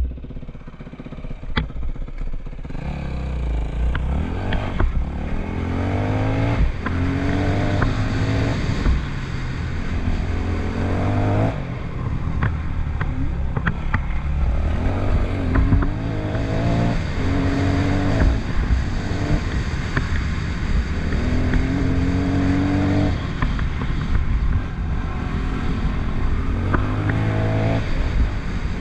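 Yamaha WR250F's single-cylinder four-stroke engine under way, revving up again and again with pitch climbing and dropping back at each gear change. A few sharp ticks are heard along the way.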